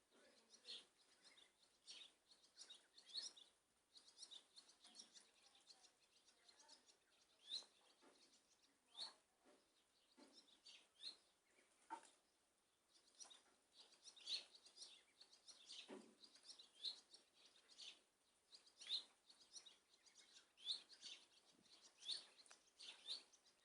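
Faint small birds chirping: short, high chirps come irregularly, about one or two a second, with no other sound.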